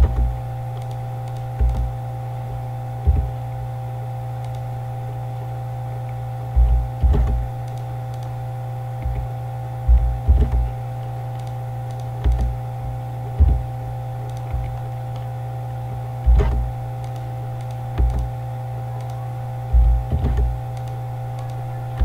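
Steady electrical hum with a few higher steady tones, broken by irregular short low thuds and clicks every second or two, sometimes in pairs: a computer mouse and keyboard being worked on a desk.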